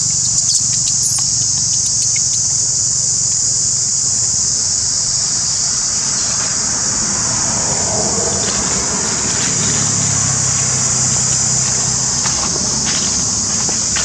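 Loud steady high-pitched drone of insects, over a low steady hum like a distant engine. Dry leaves rustle and crackle in the middle and toward the end as a macaque moves and walks through the leaf litter.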